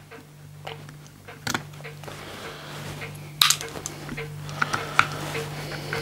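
Small sharp clicks and light metallic clinks as the small parts and screws of a CO2 air rifle's receiver are handled during disassembly, the sharpest click about three and a half seconds in. A steady low hum runs underneath.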